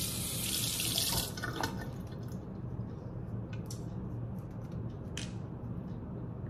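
Water running and shut off about a second in, followed by a few small clicks and a short hiss about five seconds in, over a steady low hum.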